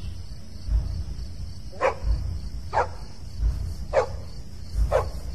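A dog barking: four short, sharp barks a second or so apart, each falling in pitch. Beneath them a deep thud repeats about every one and a half seconds.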